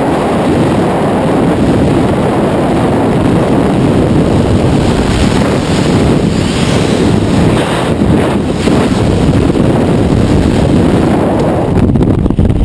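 Freefall wind rushing hard over a helmet camera's microphone. Near the end the noise loses its hiss and turns into lower, uneven buffeting once the parachute canopy is open.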